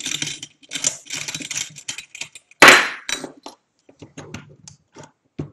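Small clicks and rattles of metal parts being handled on a telescope mount, with one loud sharp clack about two and a half seconds in as a long metal altitude-adjustment screw is set down on the work board.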